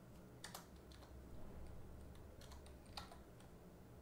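A few faint, scattered computer keyboard keystrokes as a short word is typed, over a faint low hum.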